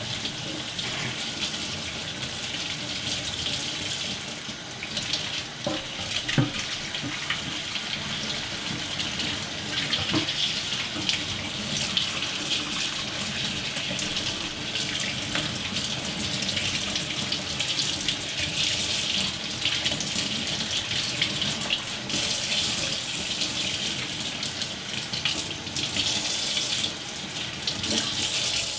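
Kitchen tap running steadily, its water splashing over a Commodore 16 keyboard being rinsed and into a steel sink, with a couple of brief knocks as the keyboard is handled; the water stops at the very end.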